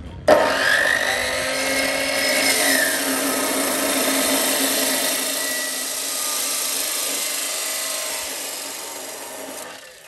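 Hitachi abrasive cut-off saw starting abruptly and its spinning disc grinding through a steel pipe: a harsh, steady hiss with a motor whine that rises and then drops as the disc bites. The cut grows quieter after about five seconds and stops just before the end.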